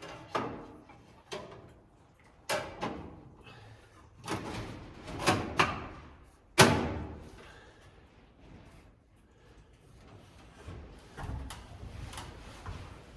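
A series of irregular knocks and thuds, about eight in the first seven seconds, the loudest about six and a half seconds in, followed by quieter scattered knocking.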